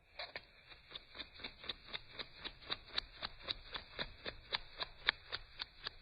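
A bird calling with a rapid series of sharp clicking notes, about four a second, growing a little louder toward the middle.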